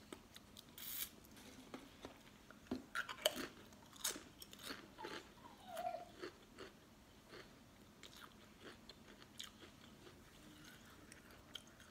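A person chewing a Pringles potato crisp: faint, crisp crunches, coming thick and fast in the first half and thinning out towards the end.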